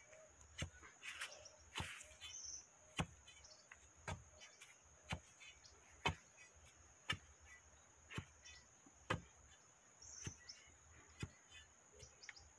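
Long iron digging bar striking packed dry earth at the base of a wooden fence post, thudding about once a second, as soil is tamped around the newly set post.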